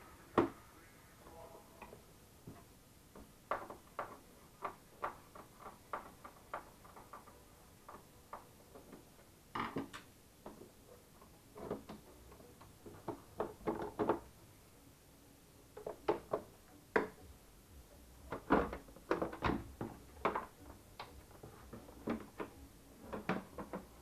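Light clicks, taps and rattles of hard plastic parts and wiring being handled on a partly disassembled Jura E8 coffee machine, coming irregularly in short clusters.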